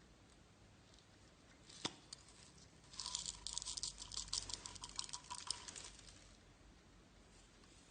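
Slime being squished by hand: a single sharp click about two seconds in, then about three seconds of dense crackling and popping.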